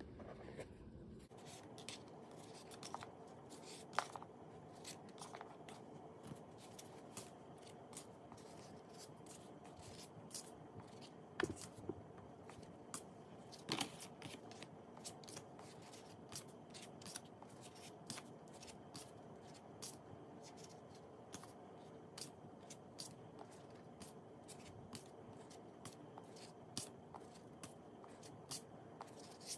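Oracle cards being slid and flipped off the top of a deck one at a time: soft papery clicks and snaps, irregular and spaced about a second apart, over faint room tone.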